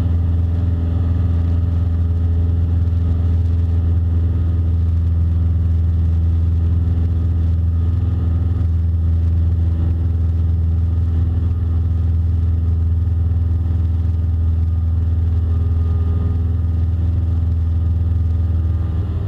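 Single-engine Cessna Skyhawk's piston engine and propeller droning steadily in flight, heard from inside the cockpit.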